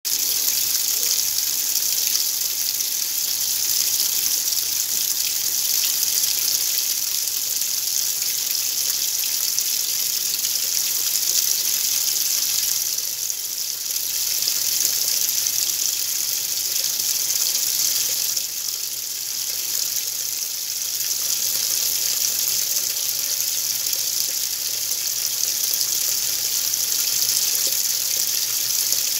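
Water running steadily in a Whirlpool washing machine, a hiss like a running tap, with a faint steady hum beneath it. The sound dips briefly twice near the middle.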